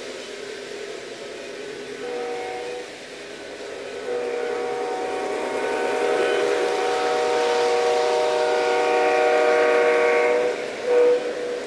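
Model diesel locomotive's sound system blowing a multi-note air horn: a short blast about two seconds in, a long blast from about four seconds to ten, then a short blast near the end, over the running noise of the train.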